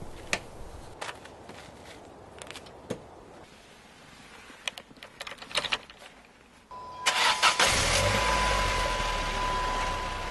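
A 2002 Saturn SC2's 1.9-litre four-cylinder engine is cranked and catches about seven seconds in, then settles into a steady idle through its newly fitted Walker muffler, started to check the new exhaust for leaks. Faint clicks and knocks come before it, and a steady high tone starts just before the cranking.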